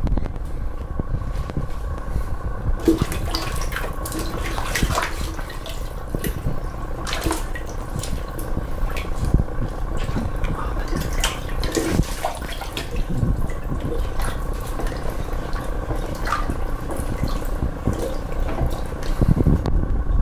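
Water sloshing and splashing in a toilet bowl as a hand stirs and crushes a block of instant ramen noodles in it, with irregular splashes throughout. Near the end a rubber plunger is pushed into the bowl with a heavier surge of water.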